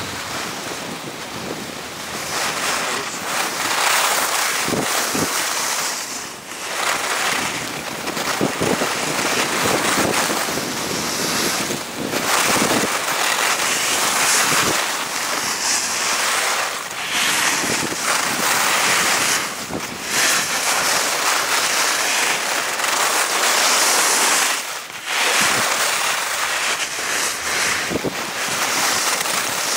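Skis hissing and scraping over packed snow, with wind rushing over the action camera's microphone during a downhill ski run. The noise is loud and swells and eases with the turns, dropping away briefly every several seconds.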